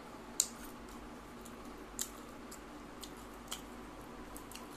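Close-miked chewing of a handful of rice, mutton curry and crispy shredded potato fries eaten by hand. Sharp wet clicks come now and then, the loudest about half a second in, with others near two and three and a half seconds in, over a faint steady hum.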